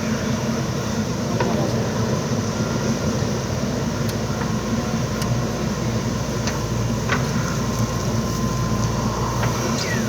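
JCB backhoe loader's diesel engine running steadily, with a few sharp clicks and knocks scattered through it.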